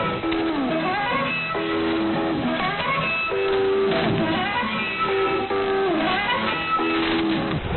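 Guitar music with held notes that slide up and down in pitch, received over an AM shortwave broadcast, so everything above about 4 kHz is cut off.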